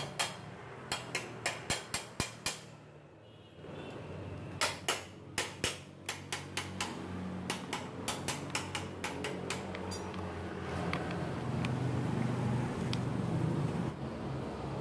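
Rotary hammer drill parts being handled and fitted together by hand, giving runs of sharp, evenly spaced clicks at about four a second, fading after the middle. A steady low rumble of passing traffic lies underneath and grows louder near the end.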